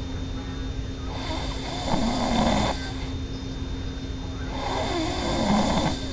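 A sleeping person snoring: two snores about three seconds apart, each lasting about a second and a half, over a faint steady hum.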